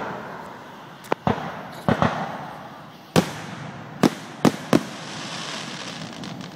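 Aerial firework shells bursting overhead: about eight sharp bangs in an irregular run, some in quick pairs, with the last three close together a little under five seconds in.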